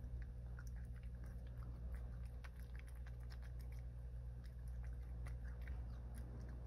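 A cat chewing and crunching dry kibble, with many quick irregular crunches, over a steady low hum.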